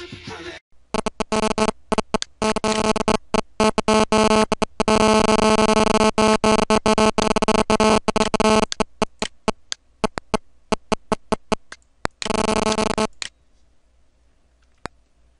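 Harsh electronic buzz of steady pitch, stuttering on and off in rapid chops. It holds unbroken for a few seconds in the middle, breaks up into scattered clicks, and returns briefly before cutting off to faint hiss with a few isolated clicks.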